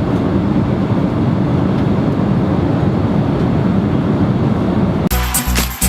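Steady airliner cabin noise in flight: the constant rumble of the jet engines and rushing air heard from inside the passenger cabin. Music starts abruptly about five seconds in.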